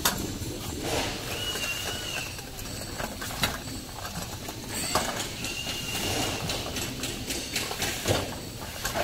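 Steel-framed folding wagon being rolled to and fro on its PU wheels, its frame rattling and clicking as it moves, with two short high squeaks in the middle.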